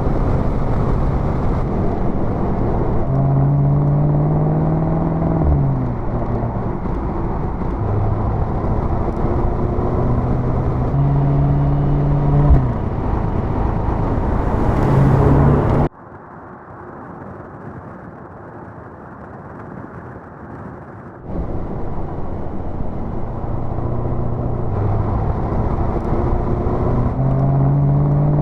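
Mercedes-AMG SL 55's 4.0-litre biturbo V8 pulling hard while driving, its pitch climbing and then dropping at each gear change, over a steady rushing road noise. About halfway it cuts suddenly to a much quieter run for some five seconds, then comes back loud.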